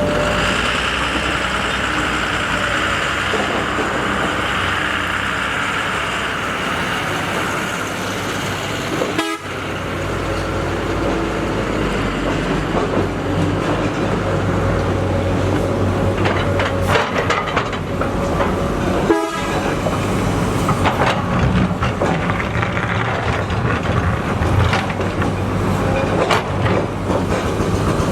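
SANY SY240C-9 hydraulic excavator's diesel engine running steadily under working load, with a faint steady whine over it. The sound breaks off for an instant twice, about 9 and 19 seconds in.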